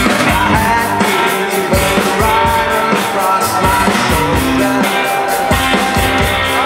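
Live band playing amplified rock and roll: electric guitars over drums with a steady beat.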